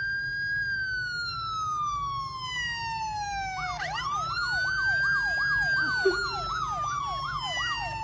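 Police-style electronic siren played through a smartphone speaker. A long wail rises and then slowly falls. A few seconds in a second wail starts, with a fast yelping warble of about three sweeps a second laid over it. There is a brief click about six seconds in.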